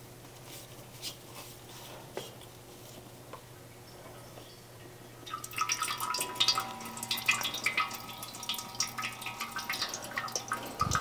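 Engine oil dripping and splattering into a metal oil drain pan from a partly loosened oil filter, letting the filter drain before it is taken off. The patter starts about five seconds in and runs on as a rapid, irregular drip.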